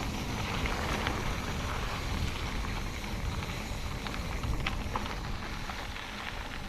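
Steady rumbling wind noise on the microphone, with a few faint clicks.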